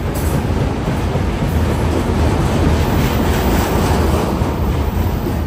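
Double-stack container cars of a CN intermodal freight train rolling past: a steady rumble of steel wheels on rail, getting somewhat louder in the middle.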